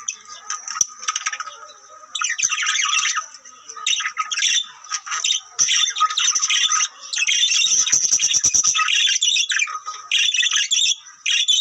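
Canary singing: long phrases of fast trills and rolls with a few short pauses in the first half. It is the song used to stimulate canaries to breed.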